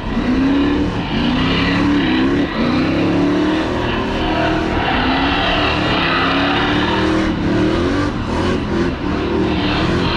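Pickup truck engine revving hard through a burnout, its pitch rising and falling over and over.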